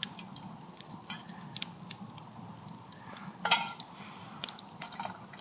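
Metal cooking utensils clinking and scraping against a pan, with scattered small taps and one louder clatter about three and a half seconds in.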